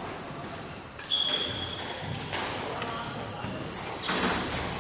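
Squash rally on a wooden-floored court: the ball knocking off racquets and walls, with a rubber-soled court shoe squeaking on the floor about a second in in one high, steady squeak.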